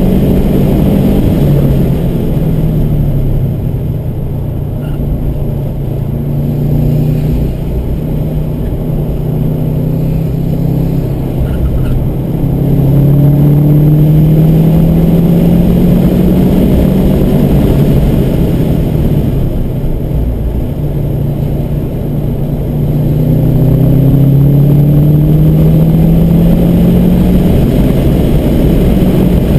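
Subaru WRX's turbocharged flat-four engine driven hard on a race track, heard from inside the cabin. The engine note climbs steadily in pitch under acceleration, once about halfway through and again near the end, and eases off in between.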